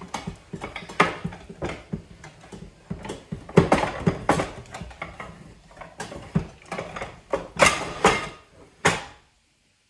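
Plates and dishes clattering and clinking as they are lifted and shifted on a stacked kitchen cupboard shelf: a quick, irregular run of knocks with short ringing. It cuts off about nine seconds in.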